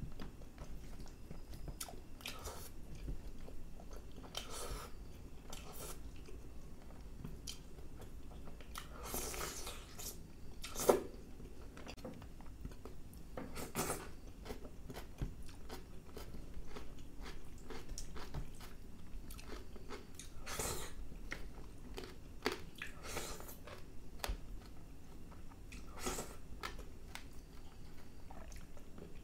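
A man chewing and biting into chicken masala curry eaten by hand, with wet mouth sounds and irregular short clicks. A single sharper click stands out about eleven seconds in.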